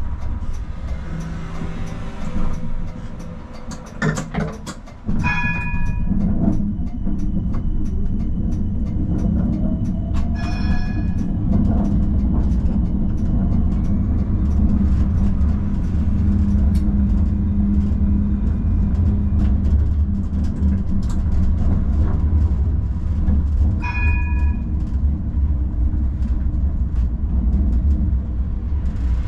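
Amsterdam tram running along its tracks, a steady low rumble of wheels and motors. The rumble eases for a few seconds, then jumps back up about five seconds in. Three short ringing tones sound about five, ten and twenty-four seconds in.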